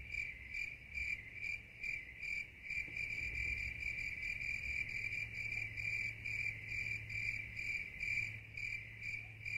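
A cricket chirping steadily at night, a high note pulsing about three times a second, over a faint low hum.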